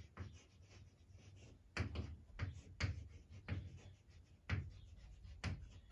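Chalk writing on a blackboard: a faint run of short taps and scrapes as letters are stroked out, starting about a second and a half in.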